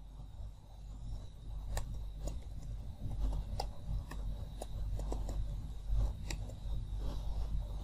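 Computer keyboard keys clicking at an irregular pace as a username is typed, over a low steady hum.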